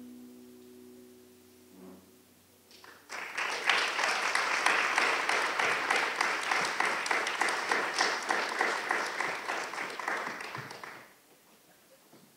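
The last acoustic guitar notes ring out and fade, then an audience bursts into applause about three seconds in, clapping steadily before dying away near the end.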